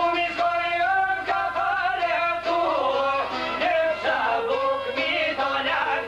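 Albanian folk song: a man singing with a bending, ornamented line over çifteli lutes strummed in a steady rhythm and a violin.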